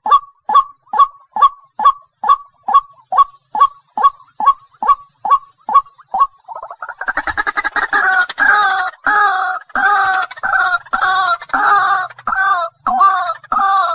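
White-breasted waterhen calling: a steady series of short, falling notes, about two and a half a second. About seven seconds in, this gives way to a louder, denser run of overlapping croaking calls.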